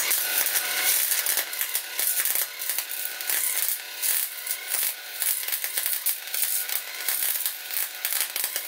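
MIG welder arc crackling and sputtering steadily while running a weld on steel, joining a steel tube to a brake disc. The crackle strikes up suddenly right at the start and runs on without a break.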